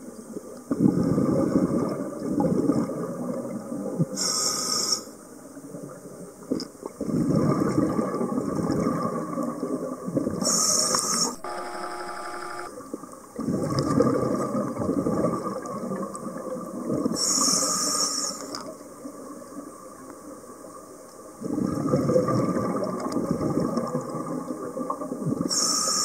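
Scuba diver breathing underwater through a regulator. Each breath is a short hiss on the inhale, then a few seconds of rumbling exhaust bubbles, about every six and a half seconds. About halfway, an inhale carries a brief humming tone.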